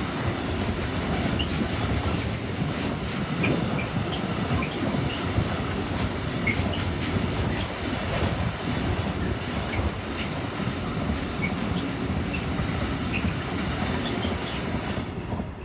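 Loaded container wagons of a freight train rolling past at speed. A steady rumble and clatter of wheels on rail, with short high wheel squeaks scattered through it. The sound falls away suddenly at the very end as the last wagon passes.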